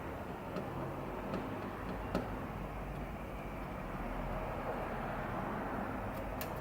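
A few sharp, sparse taps on a budgerigar's cage: about half a second in, about a second and a half in, a louder one about two seconds in, and another near the end. Under them runs a steady low background rumble.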